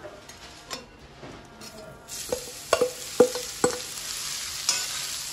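Shredded cabbage tipped into hot oil in a wok starts sizzling about two seconds in. Several sharp, ringing metal knocks follow as a metal spatula scrapes the cabbage out of a stainless steel bowl, then the frying hiss carries on steadily.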